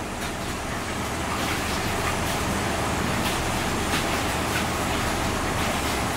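Steady background rumble with a low hum, over which a few faint taps of a kitchen knife on a plastic cutting board come as a fish fillet is skinned.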